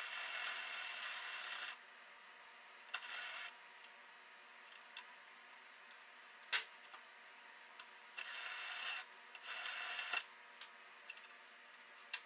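Bursts of hissing from a tool working the sheet metal of a pickup's rusted rocker panel: one at the start, a short one about three seconds in and two close together near the end, with a sharp click in the middle and light ticks between.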